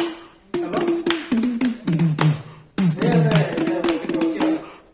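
A man making music with his mouth, fingers held at his lips: two short phrases of held notes that step down in pitch, laced with sharp clicking taps.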